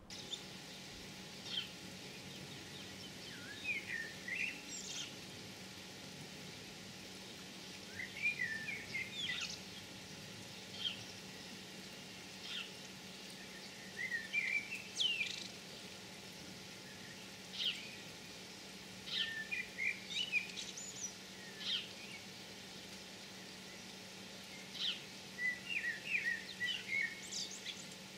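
Birds singing outdoors: short chirping phrases that recur every couple of seconds, over a faint steady hiss.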